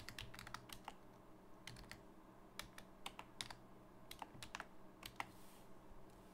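Faint computer keyboard typing: keystrokes in short irregular bursts with pauses between them, as a formula is entered.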